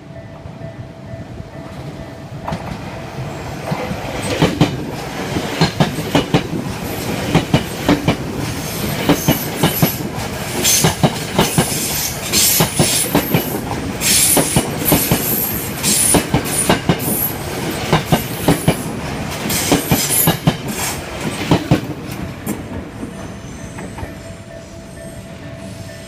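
Electric commuter train passing close by on ground-level track. Its wheels clack rapidly over the rail joints, building up from about two seconds in and fading near the end. A level-crossing warning bell sounds faintly at the start and again near the end.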